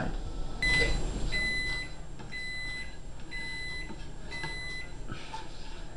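Electronic kitchen timer beeping five times, about once a second, each beep a short high-pitched tone: the timer going off as the pancake's cooking time runs out.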